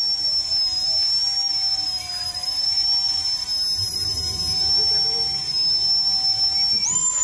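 Electric motors of a small C123 (EC135-scale) RC helicopter whining with a steady high pitch in flight. The whine drops a little in pitch at the start and steps back up near the end.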